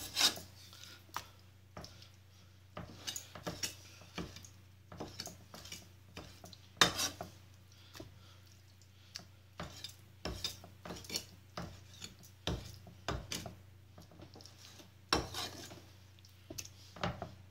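Meat cleaver chopping raw chicken liver on a wooden chopping board: irregular sharp knocks of the blade striking the board, loudest right at the start, about seven seconds in and near the end.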